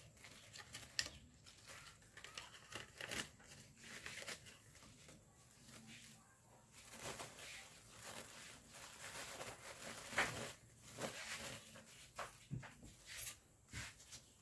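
Paper and a banknote rustling and crinkling in short, irregular rustles as hands fold the note and tuck it into a bouquet wrapped in tissue paper and mesh.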